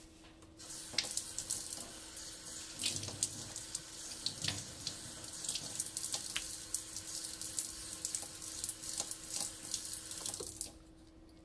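Tap water running into a stainless steel sink and splashing, with a towel being wetted under the stream; the flow starts about half a second in and shuts off near the end.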